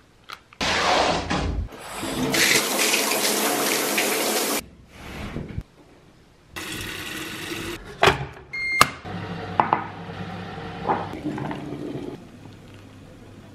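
Water running, heard in a few separate stretches, the longest and loudest in the first few seconds, with a couple of sharp clicks in between.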